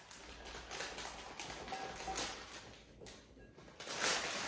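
Brussels sprouts tumbling out of a plastic bag into a ceramic bowl, the bag crinkling, with the loudest patter of sprouts landing about four seconds in.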